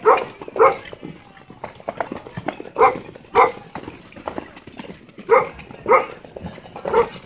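A dog barking in short double barks every two to three seconds, with one more bark near the end. Horses' hooves clop on a dirt street underneath.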